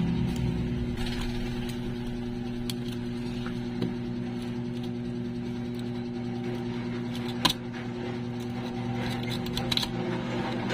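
Thin metal pick scraping and clicking along the edge of a Samsung Galaxy Tab A7 Lite's frame, working out broken screen remnants, with one sharper click about seven and a half seconds in. A steady low hum runs underneath.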